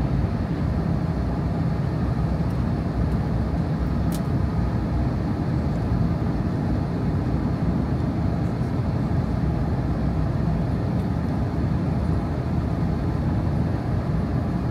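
Steady cabin rumble of an Airbus A321neo in flight on approach: engine and airflow noise heard from a window seat beside the engine, even in level.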